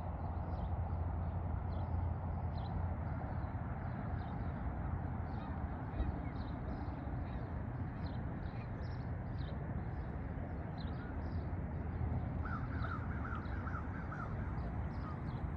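Birds calling again and again in short notes over a steady low rumble of wind, with a quick run of calls about twelve seconds in.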